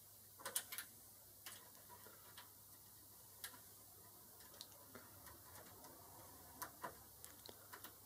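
Faint, irregular metallic clicks of a lock pick working the pins of an E*S MP5 pin-tumbler door lock cylinder, with a cluster of sharper clicks about half a second in and scattered ticks after.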